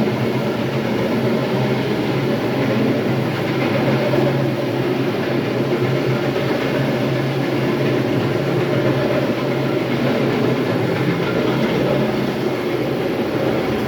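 Electric terrazzo floor grinder running steadily as it grinds a floor: a constant low motor hum under an even, rough grinding noise.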